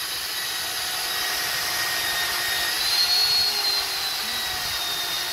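Corded electric chainsaw running as it cuts up a fallen tree trunk: a steady high whine that climbs and gets louder briefly about three seconds in.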